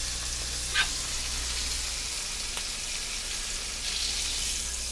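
Steaks and scrambled eggs frying in hot pans, a steady sizzling hiss. There is a brief sharp click about a second in and a fainter one midway.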